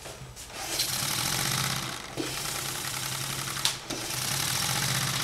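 Wooden inline-4 air engine running on compressed air through one pair of cylinders: a steady hiss of air with a rapid clatter of the pistons and valves, briefly dipping about two seconds in. The pair is being run to check that it drives the engine.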